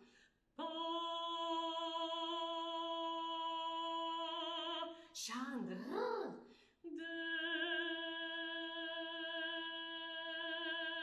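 Unaccompanied female alto voice holding a long, steady note, then a short swooping phrase that slides up and down, then the same note held again.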